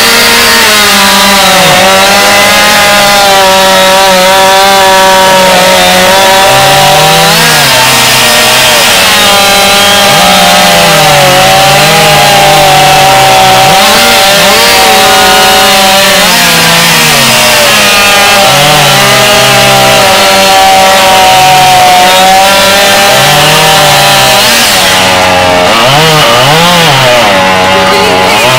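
Two-stroke chainsaw running at high revs through a long cut in wood. The engine note dips repeatedly as the chain bites under load and climbs back, with no break.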